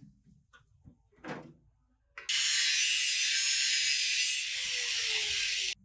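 Angle grinder with a thin cut-off disc cutting through a steel body panel. The harsh, loud cutting noise starts abruptly about two seconds in, runs for about three and a half seconds and stops suddenly. Before it come a few light knocks.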